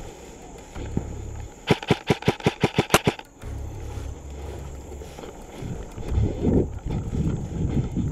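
Airsoft rifle firing a rapid burst of about eleven shots in under a second and a half, roughly eight a second. Near the end comes irregular rustling of grass and brush underfoot.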